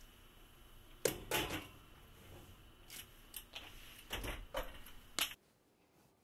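A metal baking pan set onto an oven's wire rack and pushed in, then the oven door swung shut: a run of sharp clanks and knocks over about four seconds, the first the loudest. A faint steady hum sits underneath and stops abruptly near the end.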